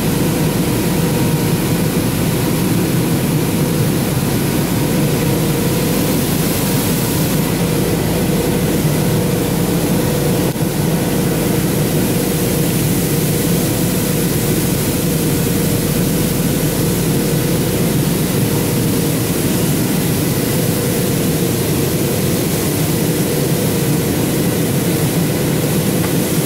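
Steady jet engine and airflow noise of a Boeing 737 airliner heard inside the passenger cabin, with a faint constant whine running through it.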